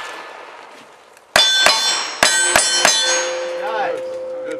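A quick string of five gunshots, each with the clang of a steel plate target being hit and ringing. The string starts after about a second of near quiet, and a ringing tone lingers after the last shot.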